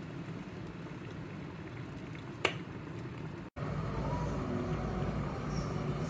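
Glass electric kettle heating water: a steady low rumble and hiss of water coming up to the boil. A single sharp click comes about two and a half seconds in, and after a brief dropout the rumbling is louder.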